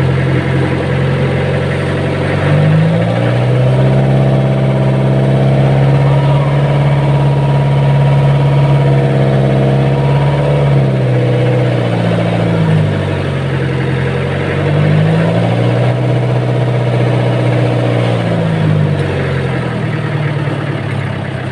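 Fishing boat's engine running, its pitch going up and down several times as the throttle is opened and eased: up about three seconds in, down near eleven seconds, then up and down again twice.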